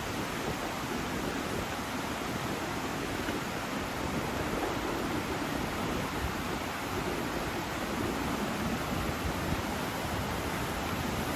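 Steady rushing of a fast mountain river's water over rocks, an even hiss with no breaks.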